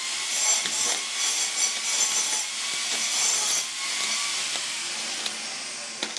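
Stick-welding arc burning on a stainless steel tube joint at a low 60-amp setting, a steady crackling hiss that dies down in the last couple of seconds as the arc is broken. The low current is set so the thin stainless tube does not burn through.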